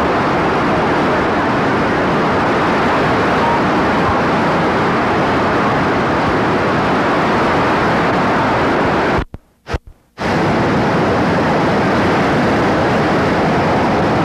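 Steady rushing of a whitewater mountain stream tumbling over boulders, a continuous even roar that cuts out for about a second around nine seconds in.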